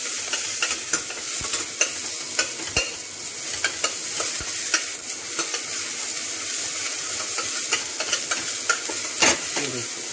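Sliced onions sizzling in hot desi ghee in a pressure cooker, stirred with a spoon that clicks and scrapes against the pot again and again, one knock louder near the end.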